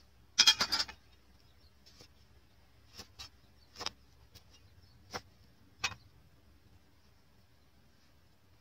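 Cleaver cutting a lime in half on a wooden chopping board: a quick run of sharp knocks about half a second in, then a few lighter separate knocks and taps of the knife and lime halves on the board.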